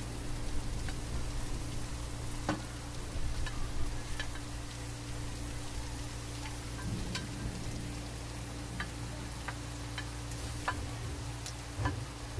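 Sliced vegetables sizzling as they are pushed off a plate into a hot, oiled wok, with scattered light clicks and taps from the spatula against the plate and pan.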